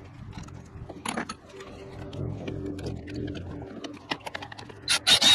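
Milwaukee M12 cordless ratchet running in short bursts near the end, a buzzing motor whine with a high tone. Faint cooing and light handling noise underneath before it.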